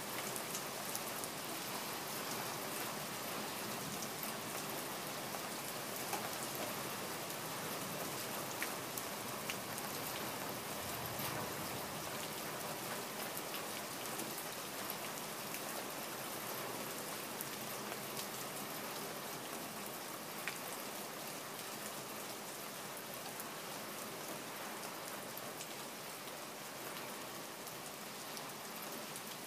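Steady rain falling: a dense, even hiss with the odd louder single drop standing out.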